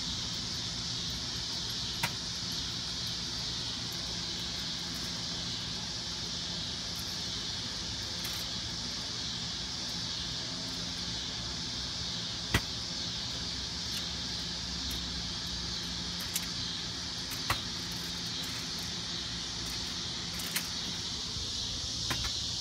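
Steady high chorus of insects, an even shrill hiss, with a few sharp clicks now and then.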